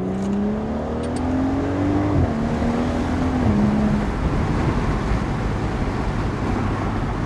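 BMW N55 turbocharged inline-six with a VRSF catted downpipe accelerating, heard from inside the car with the windows down: the engine note climbs, then drops twice as the transmission upshifts, about two and three and a half seconds in. After that the engine tone fades under a steady rush of wind and road noise at freeway speed.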